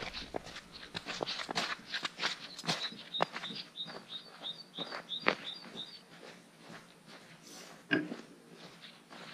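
Footsteps crunching and squeaking in packed snow at a walking pace, easing off for a moment late on. A short high chirp repeats about four times a second for a few seconds in the middle.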